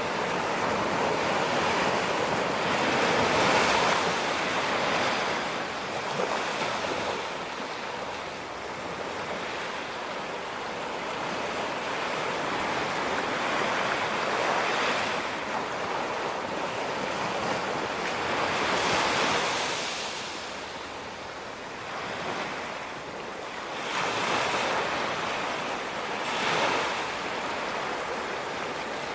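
Ocean surf breaking on a beach: a steady wash of water with a louder surge of a breaking wave every few seconds, five over the half minute.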